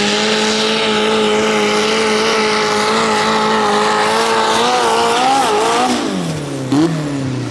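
Compact diesel pulling tractor's engine running hard at high, steady revs while dragging a weight sled. About five seconds in the note wavers, then the revs fall away sharply as the throttle comes off at the end of a full pull.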